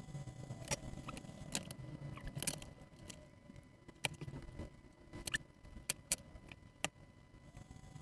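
Hands working with small parts of a switch keypad assembly and its wires: rustling and handling noise with about eight sharp, irregularly spaced clicks.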